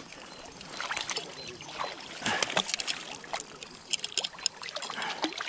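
Water splashing and trickling with many irregular small clicks and knocks, as a freshly landed rainbow trout is handled at the water's edge.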